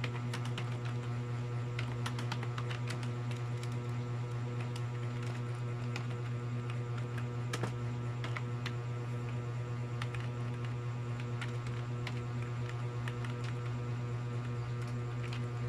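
Keyboard keys clicking in quick, irregular runs of typing, over a steady low electrical hum that is the loudest sound.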